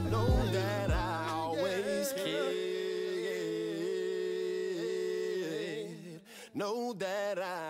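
Background song with a sung vocal. The bass beat drops out about two seconds in, leaving the singing over steady backing.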